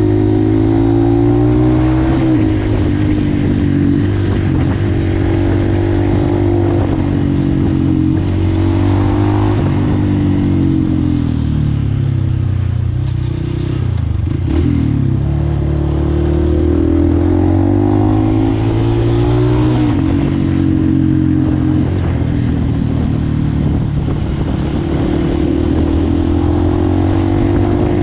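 Dirt bike engine running under way, its revs rising and falling again and again as the bike is ridden. The revs drop low about halfway through, then build back up.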